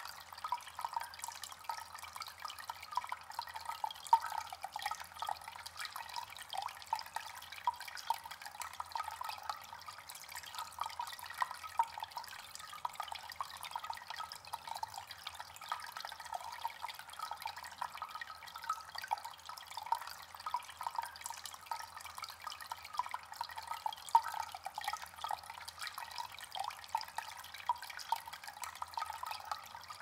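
Small stone bubbler fountain: water wells up through the centre nozzle and trickles over a round stone disc into a pebble-filled basin. It makes a steady trickle dotted with many small drips and splashes.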